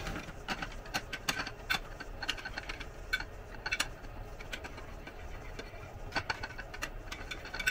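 Metal spoon stirring a wet chicken-and-rice mixture in glass baking dishes, clinking and scraping against the glass in irregular clicks.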